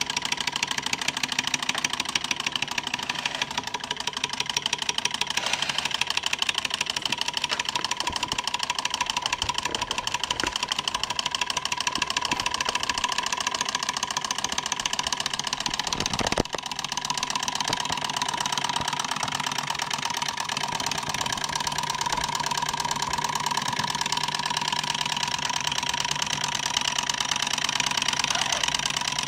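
Pre-1910 Bing 135/11 Stirling hot-air model engine running steadily, its mechanism making a fast, even rattle. A single sharp knock comes about halfway through.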